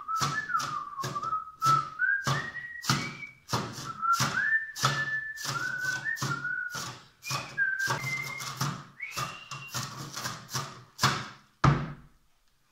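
A whistled tune with sliding notes, played as a pretend trombone, over steady knocks at about two a second on a makeshift drum. Both stop about a second before the end.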